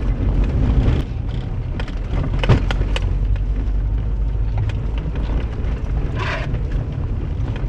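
Mercedes car engine running at low revs, around 1,500 rpm on light throttle, with steady tyre and road rumble from a rough dirt track, heard inside the cabin. A few sharp knocks come through two to three seconds in.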